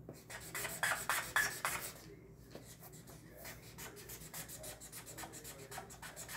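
Green Expo dry-erase marker scribbling quickly back and forth on lined notebook paper, colouring in an area. The strokes are loudest and fastest in the first couple of seconds, then continue more softly.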